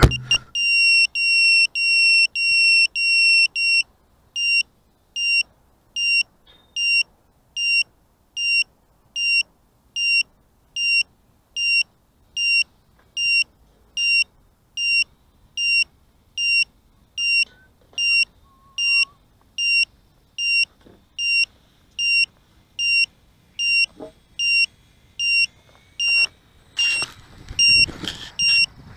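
A 5-inch quadcopter's onboard beeper sounds a high, evenly repeating beep, about two a second at first and then about one and a half a second: the locator beeping of a drone that has come down and lies in the grass. Near the end there is rustling and knocking as the drone is moved.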